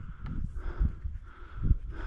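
A person breathing hard in a steady in-and-out rhythm, with two heavier footfalls thudding about a second apart.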